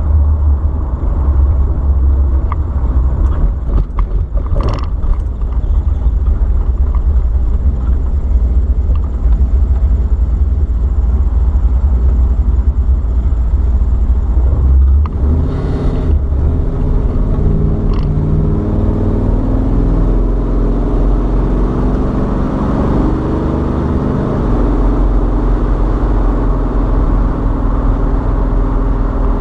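Car on the move with a steady low rumble; from about halfway a pitched buzz rises over it, stepping up and down in pitch. The buzz is taken by the owner for a transmission problem.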